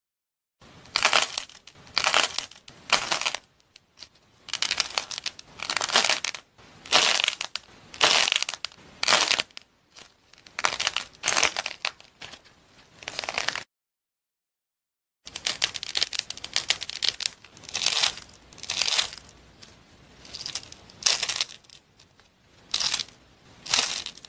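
Crunchy, crumbly dried foam squeezed and broken apart between fingers: repeated crisp crackling crunches, about one a second. The crunching stops for about a second and a half a little past halfway.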